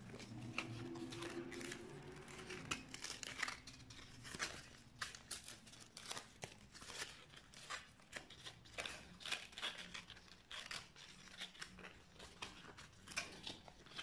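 Stiff paper and glitter paper pieces rustling and crackling as they are handled and fitted together, in many short, irregular crackles.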